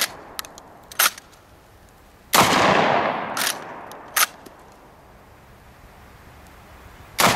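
Chiappa 1887 Mare's Leg lever-action 12-gauge shotgun fired twice, about five seconds apart, the second shot right at the end. Each blast fades away over a couple of seconds. Short sharp metallic clacks of the lever being cycled come twice before the first shot and twice after it.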